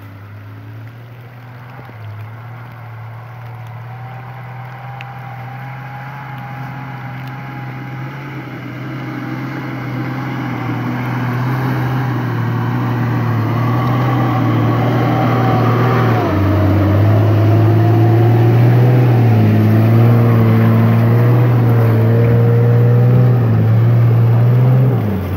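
Nissan Patrol's diesel engine working under load as the 4x4 climbs a muddy forest track, growing steadily louder as it approaches and passes, its revs rising and falling.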